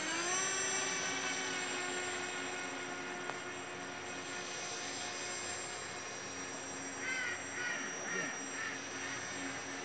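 Radio-controlled model boat's motor whining, rising in pitch as it speeds up at the start, then holding a steady pitch and slowly fading as the boat runs away across the pond. A few short chirping calls about seven seconds in.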